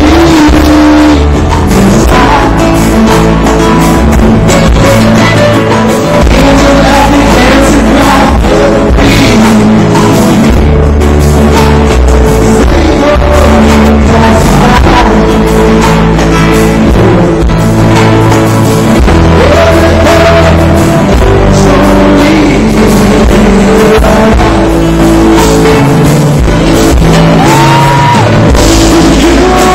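Live rock band playing loudly: a singer sings over acoustic and electric guitars, bass and a drum kit.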